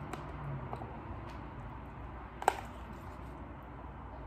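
A few light clicks of a metal fork against a plastic food container and the food in it, the sharpest about halfway through, over a low steady hum.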